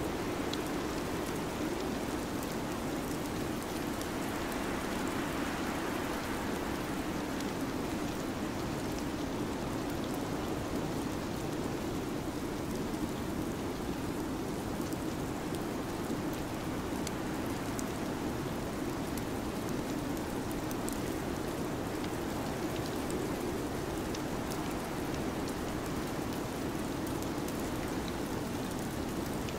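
Steady, even rushing noise from an ambience soundtrack, with faint scattered ticks and no change in level.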